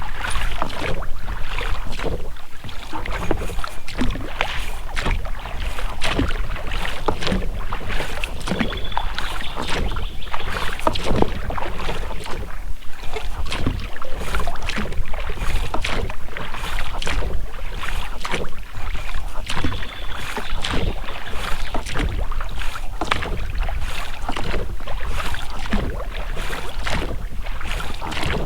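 Oars of an inflatable boat dipping and splashing in the water with repeated irregular strokes, the rubber rowlocks creaking now and then as the oars work.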